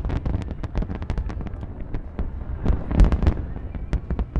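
Aerial fireworks going off: a rapid run of sharp crackling reports over deep booms, with a loud cluster of bursts about three seconds in.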